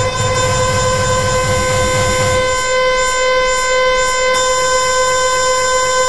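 Black MIDI playback: an extremely dense mass of synthesized MIDI notes, rendered through the Arachno SoundFont, merging into a loud, steady drone on one held pitch with its overtones. A low rumbling layer underneath drops away about two and a half seconds in.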